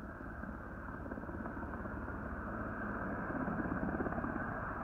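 Firefighting helicopter's rotor and engine, steady and growing gradually louder as it flies over.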